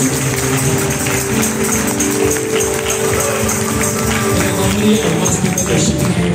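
Worship music with long held notes and a steady shaking beat in the high range.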